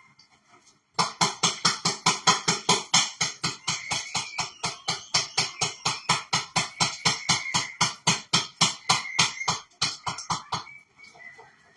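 Hand-cranked can opener being turned around a tin of chickpeas, clicking about five times a second with each turn of the crank, stopping about a second before the end.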